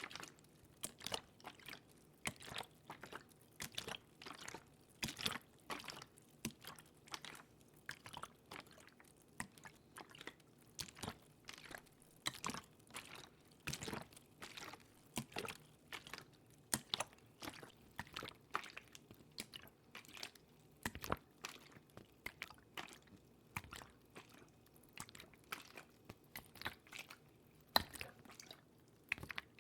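Close-miked ASMR water sounds: an irregular run of small wet clicks, drips and little splashes, a few a second.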